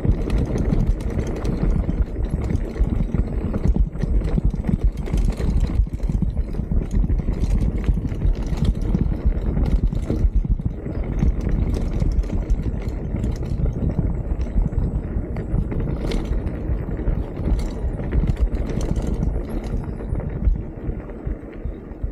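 Mountain bike riding over rough, grassy trail: a continuous rumble with a dense clatter of knocks and rattles from the bike over the bumps, easing off near the end.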